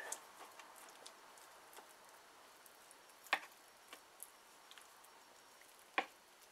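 A spoon spreading sticky bread dough in a metal baking pan: mostly quiet, with faint ticks and two sharp clicks, one a little over three seconds in and one near the end.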